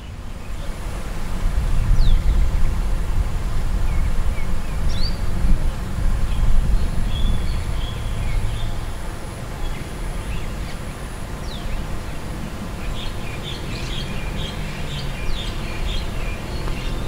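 Birds chirping now and then over a steady low rumble, the chirps coming thicker near the end.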